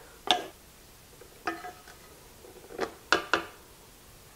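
A slotted wooden spoon knocking against a glass pie plate while ground beef and onion are pressed flat in it: about five separate knocks, one with a short glassy ring.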